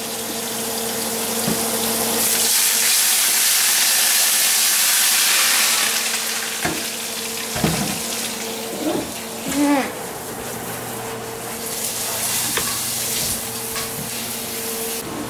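Kitchen tap running into a stainless-steel sink and onto a pot. The water hisses loudest from about two to six seconds in, then runs on more quietly, over a steady hum.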